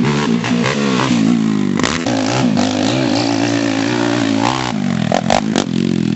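Yamaha YFZ450 quad's 450 cc single-cylinder four-stroke engine revving hard, its pitch rising and falling as the rider works the throttle around the dirt track. A few sharp clatters near the end.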